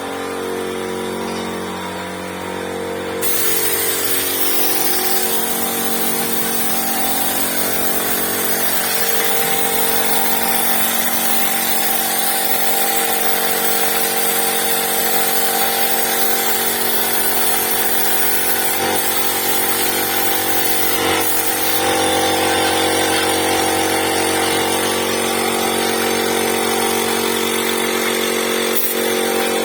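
An engine running steadily at a constant speed. About three seconds in, a steady hiss of a power tool or similar machine joins it.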